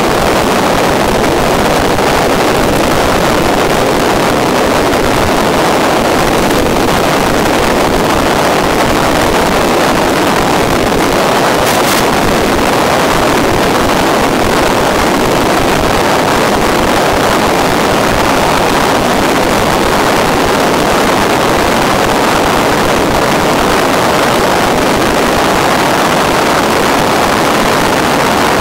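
Steady rushing noise with no pitch or rhythm to it, carried on the FPV aircraft's analog video downlink during cruise.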